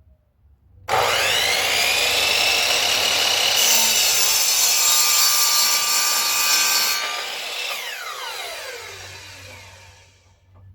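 Electric power saw cutting a pressure-treated 2x2 board: the motor starts about a second in with a rising whine, the blade runs through the wood in the middle, and the saw winds down with a falling whine near the end.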